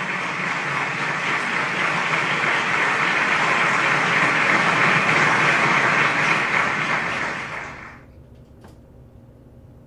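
A loud rushing noise that gradually swells, then fades away about eight seconds in. What remains is a faint low hum and a single brief click.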